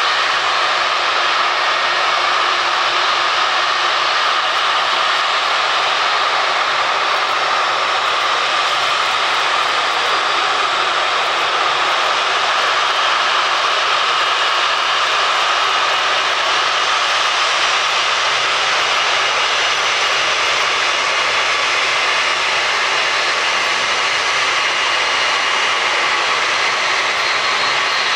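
Jet airliner engines running at high power for departure, a loud steady roar with a faint high-pitched whine in the second half.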